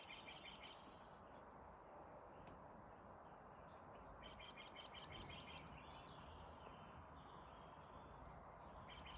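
Quiet outdoor ambience with faint bird chirps: short runs of rapid chirps near the start, again about four seconds in, and at the end, over a steady low hiss.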